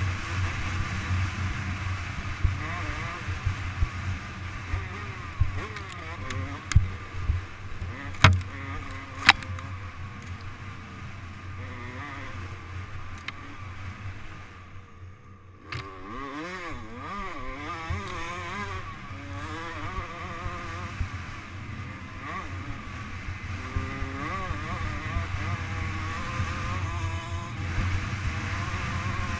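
Dirt bike engine revving up and down as it is ridden hard and shifted, heard from onboard the bike. A few sharp knocks come in the first third. About halfway through, the throttle closes briefly and the engine drops away, then the revs climb again.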